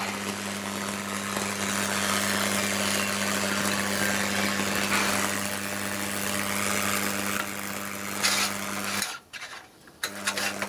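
A failed motor run capacitor on mains power, hissing steadily as it burns out and vents thick smoke, over a steady electrical hum. The sound drops out abruptly about nine seconds in for around a second, then returns.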